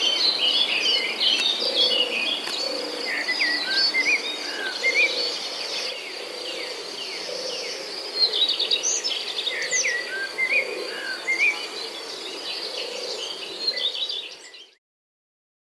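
Forest ambience: many birds chirping and calling over a steady high-pitched drone of insects, with a low call repeating about once a second. It fades out quickly near the end.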